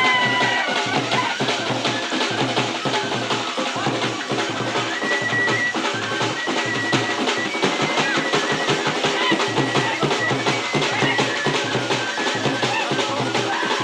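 Bhaderwahi dhol drums, double-headed barrel drums beaten with sticks, playing a steady, fast dance rhythm.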